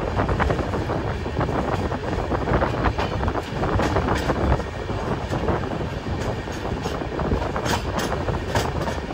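An express train hauled by a WDG4 diesel locomotive running along the track: a steady rumble with a constant run of clicks and knocks from wheels and rails. Sharper high-pitched clicks stand out about four seconds in and again near the end.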